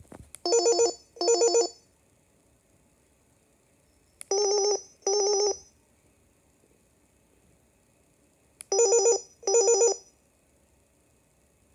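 Panasonic KX-TPA60 cordless handset playing one of its ringer patterns: a warbling electronic double ring, heard three times about four seconds apart, each pair starting with a brief click.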